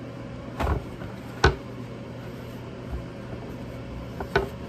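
A few short thumps and knocks from pizza dough and flour being handled on a kitchen counter during reflouring: one just under a second in, a sharper and louder one soon after, and a last pair near the end. A steady low hum runs underneath.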